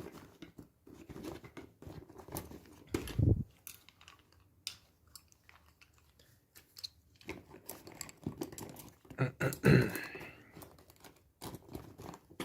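Rummaging through an electrician's tool bag: irregular rustling of the bag with clicks and clinks of hand tools being moved, and a couple of heavier thumps, one about three seconds in and one near ten seconds.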